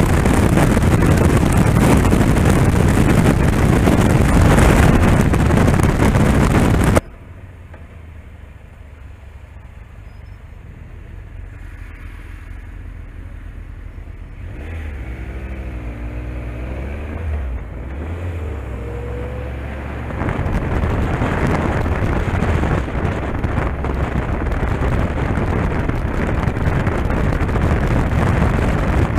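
Heavy wind noise on the camera from a motorcycle at road speed, cutting off abruptly about seven seconds in. A quieter stretch follows, with the motorcycle engine pulling away at low speed, its pitch rising and falling through a few gear changes, then wind noise builds back up as the bike gains speed.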